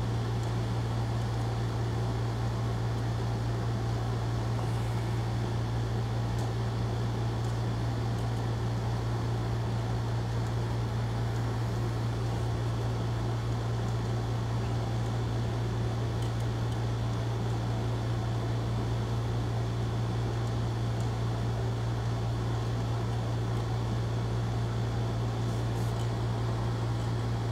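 Engine of a truck-mounted crane rig running at a steady idle: an even low drone that does not change.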